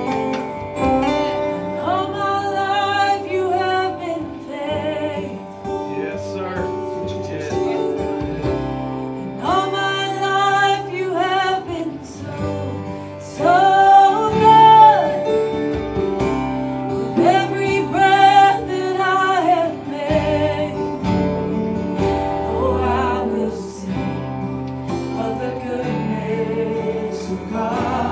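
Live worship music: a singer holding long sung phrases over guitar accompaniment.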